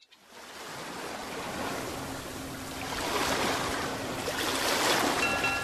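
Ocean surf washing in, a steady rush of breaking waves that fades in from silence and swells and eases. A few soft steady tones come in near the end.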